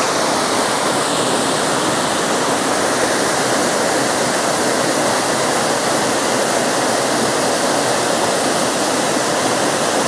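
Steady, even rush of flowing water from a rocky forest stream and waterfall, unbroken throughout.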